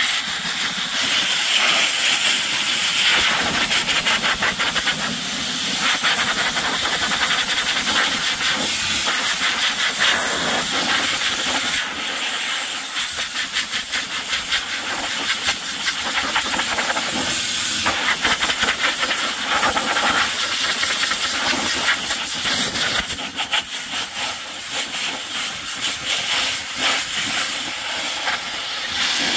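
Compressed air hissing loudly and steadily, with a brief drop about twelve seconds in.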